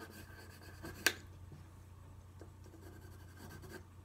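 Colored pencil scratching softly on paper in short shading strokes, with one sharp tap about a second in.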